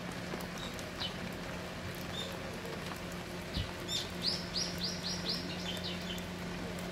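A bird calling: a few single high chirps early, then a quick run of about seven short falling notes about four seconds in. Behind it, the steady patter of heavy rain and dripping water.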